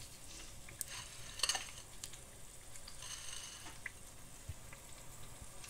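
Faint sizzling of hot frying oil, with a few soft clicks.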